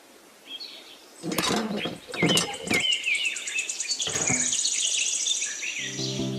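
Small birds chirping, with a rapid high insect-like trill over the second half and a few short knocks. Background music comes in near the end.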